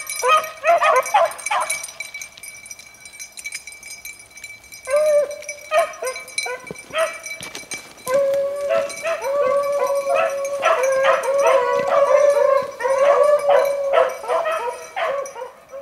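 A pack of beagles baying as they trail a rabbit's scent: a burst of calls at the start, a lull of a few seconds, then a steady chorus of several hounds through the second half.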